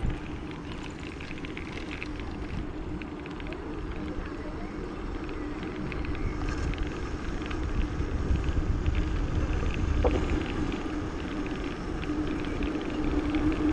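Bicycle riding on a paved path: low rumble and wind buffeting the microphone, with a steady low hum that grows louder near the end.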